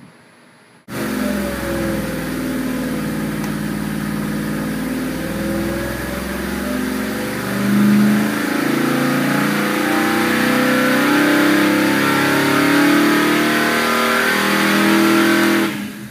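455 big-block Oldsmobile V8 with Fast EFI pulling under load on an engine dyno, starting abruptly about a second in. Its pitch climbs steadily as the rpm sweeps up from about 3,000 toward nearly 5,000, then the sound falls away sharply near the end as the pull ends.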